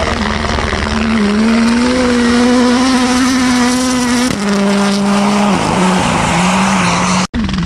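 Toyota GR Yaris Rally1's turbocharged four-cylinder engine held at high revs as the car slides through a dirt corner, its pitch climbing slowly, then dropping sharply about four seconds in and settling lower. The sound cuts out for an instant near the end.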